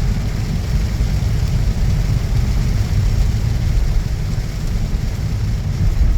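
Heavy rain with a steady low rumble of vehicle noise under its hiss.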